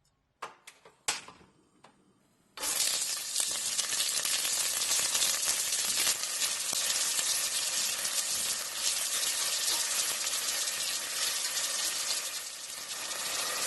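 A few light clinks of utensils on cookware, then food goes into hot oil in a pan and sizzles loudly and steadily, easing off near the end.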